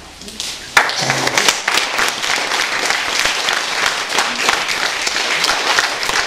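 A small group of people applauding, breaking into clapping about a second in and keeping up a steady patter of claps.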